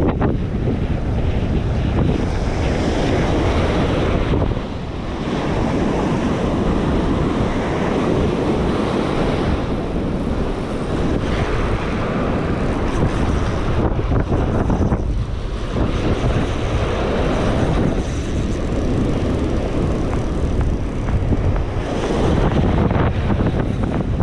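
Strong wind buffeting the microphone in gusts, with surf washing behind it.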